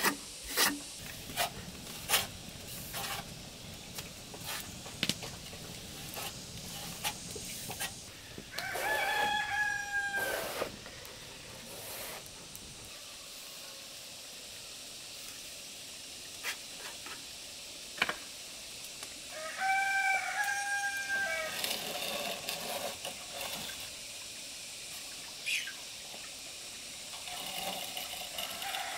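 A rooster crowing twice, each crow about two seconds long and some ten seconds apart. Scattered sharp taps and knocks, loudest in the first few seconds.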